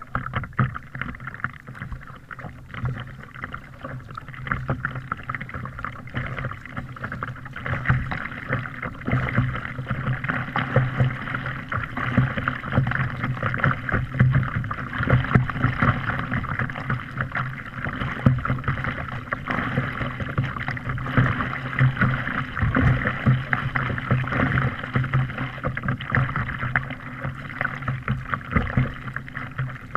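Water lapping and slapping against a kayak hull as it moves across choppy water, a continuous rough wash of small irregular splashes that gets louder about eight seconds in.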